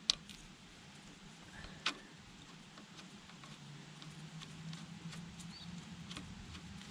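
Small metallic clicks as a banjo bolt with copper washers is fitted by hand into the fuel-return port of a Lucas diesel injection pump. There are two sharper clicks, one at the start and one about two seconds in, then a few faint ticks over a faint, steady low hum.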